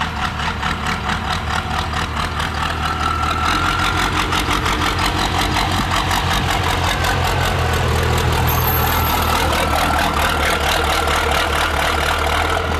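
A second-generation Dodge Ram pickup's engine running with a rapid, even pulsing clatter. It grows louder over the first few seconds as the truck pulls up close, then runs steadily at idle.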